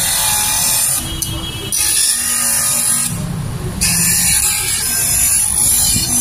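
Manual lens cutter machine's spinning blade shaving the edge of a plastic spectacle lens: a steady high hiss over the motor's buzz, which eases off twice briefly.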